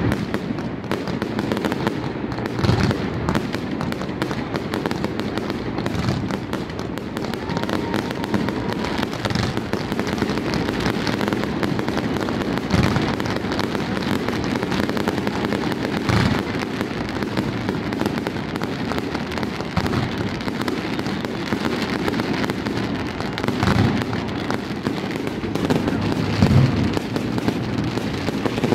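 Fireworks display going off without a pause: aerial shells bursting in a dense run of bangs and crackle, with a louder boom every few seconds.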